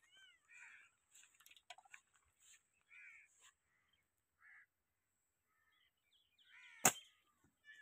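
Lapwings calling with short, repeated cries; near the end a single sharp snap as a slingshot is shot.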